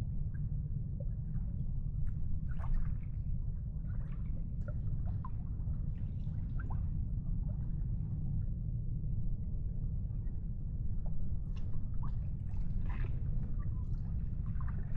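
Water lapping and gurgling in small splashes and drips over a steady low rumble.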